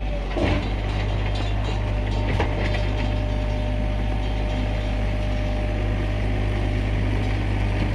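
Sany SY35U mini excavator running steadily with a low engine drone, with a couple of short knocks from the machine working, about half a second and two and a half seconds in.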